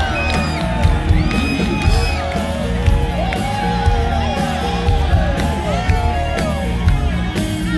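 Live rock band playing loudly through a PA: sustained, bending electric-guitar lines over bass and drums.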